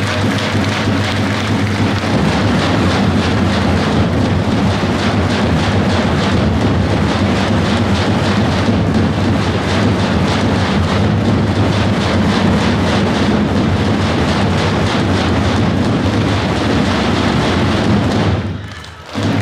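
Many tapans, large double-headed Balkan folk drums, beaten together in a loud, continuous massed roll that makes a dense, steady rumble. It breaks off for under a second near the end and starts again.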